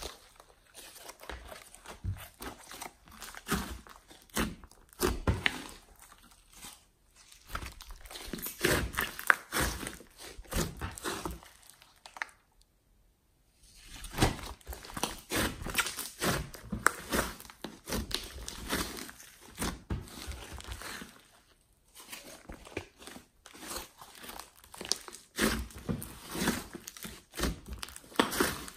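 Thick slime mixed with clay and glitter being squeezed, kneaded and stretched by hand, giving an irregular run of sticky crackles, pops and squelches. It falls silent for about a second and a half near the middle, then goes on.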